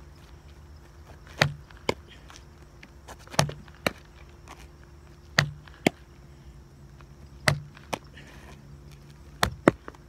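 A baseball thrown and caught in a leather fielder's glove: five sharp smacks about two seconds apart, each followed by a lighter tap about half a second later.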